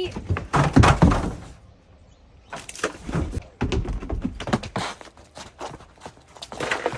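A run of irregular thuds and knocks, densest just under a second in and resuming after a short lull.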